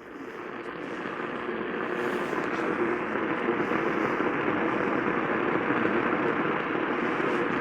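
Steady radio static hiss from a receiver tuned to no clear signal, swelling up over the first couple of seconds and then holding.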